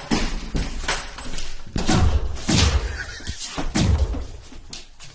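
A rapid series of heavy thuds and bangs, the three biggest about two, two and a half and four seconds in, with lighter knocks between them.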